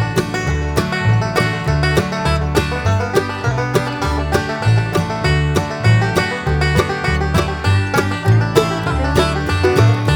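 Upbeat background music with a steady beat, led by bright plucked strings in a banjo-like, country-bluegrass style over a walking bass line.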